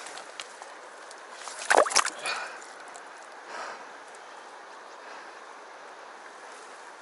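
Shallow stream water running steadily over rocks, with a short, loud splash in the water about two seconds in and a fainter one a little later.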